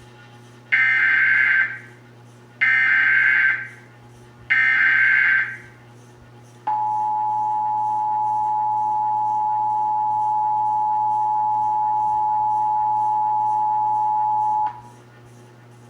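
Emergency Alert System test tones: three short bursts of screeching digital data from the EAS header. These are followed by the EAS two-tone attention signal, held steady for about eight seconds before it cuts off.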